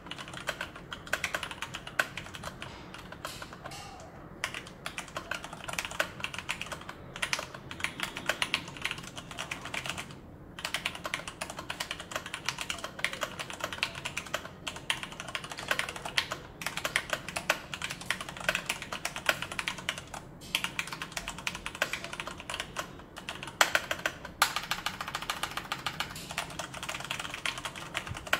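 Typing on a Leopold FC660M mechanical keyboard with tactile Cherry MX Brown switches and PBT doubleshot keycaps: a dense, continuous clatter of many keystrokes a second, broken by a few short pauses.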